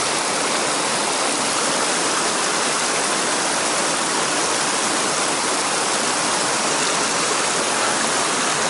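Mountain stream rushing over rocks and small rapids: a steady, loud wash of water that does not change.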